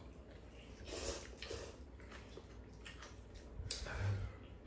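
Stir-fried ganjjamppong noodles being slurped and chewed at the table: two short wet slurps, about a second in and again near the end, with soft chewing between.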